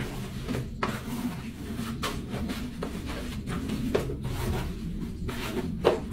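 Rubber-gloved hands kneading and rubbing a fishing net in a basin of tung oil and gasoline, an irregular wet rubbing with a few sharp clicks; the net is being worked so its lines soak up the oil.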